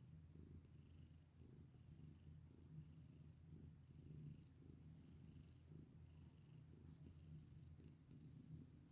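Domestic cat purring softly and steadily while being stroked: an even, low rumble.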